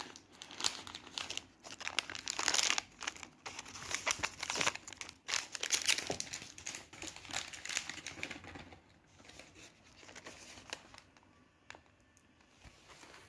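Plastic cat-treat pouches crinkling and rustling in a dense run of crackles for about the first eight seconds, then dying down to a few faint clicks.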